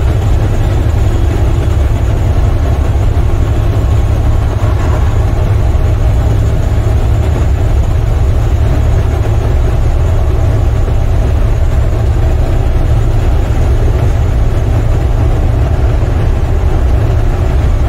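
Steady low drone of an International semi-truck's MaxxForce 13 diesel engine cruising at highway speed, heard inside the cab with road and tyre noise.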